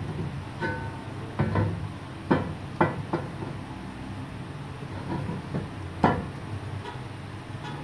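Steel truck wheel centre plate knocking and clinking against the rim barrel as it is handled and fitted: a handful of sharp metal knocks with brief ringing, the loudest about six seconds in.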